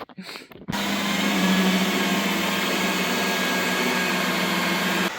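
Electric paint polisher running steadily with a motor hum, starting abruptly less than a second in and dropping abruptly to a quieter run just before the end.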